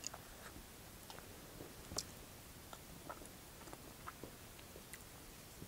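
Faint eating sounds: quiet chewing and scattered soft clicks as a fork and knife cut into a wet burrito in a foam takeout container, the clearest click about two seconds in.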